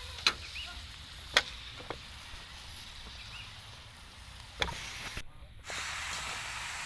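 Chicken feet going into a hot wok: a few sharp knocks of food and utensil against the pan, then, after about five seconds, a steady louder frying hiss.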